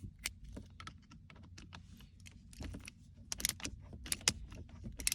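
Irregular small metal clicks and taps of a tool working the T25 Torx screw out of the side of a manual shift knob, busiest in the second half.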